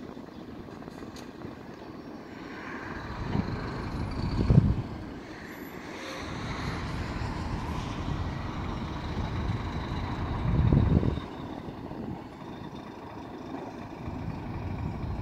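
Low engine rumble of heavy vehicles such as lorries and tractors. It swells louder twice, about a third of the way in and again about two-thirds in.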